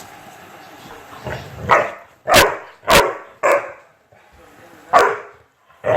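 Chocolate Labrador barking: a run of loud, sharp barks starting about a second and a half in, four in quick succession, then a short pause and two more near the end.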